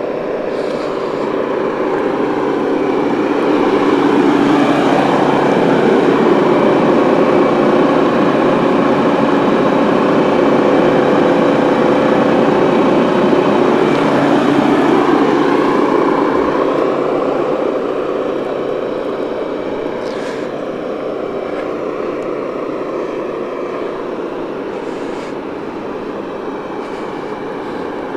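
Heavy diesel engine of a KAMAZ 54901 tractor truck idling steadily. It grows louder a few seconds in, as heard from low under the front bumper, and eases back after about sixteen seconds.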